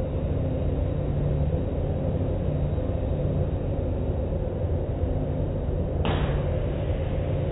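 Automatic car wash heard from inside the car: a steady low rumble of the wash machinery and water against the body, with a sudden sharp swish about six seconds in as the wash hits the car.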